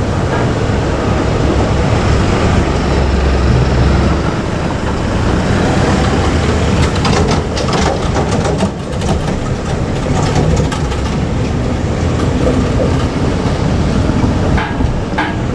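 JR Kyushu 817 series electric train running by with a steady rumble of wheels on rail. A run of sharp rail-joint clicks comes about halfway through and again near the end.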